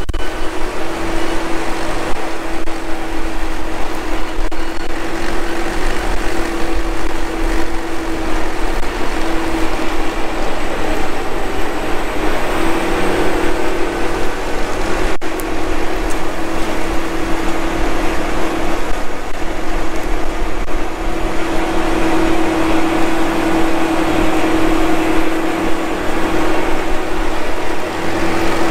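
Case IH Quadtrac 580's diesel engine running steadily under load as it pulls a tile plow through the soil, laying drainage tile. A strong steady hum rides over the engine noise, and the level holds even for the whole stretch.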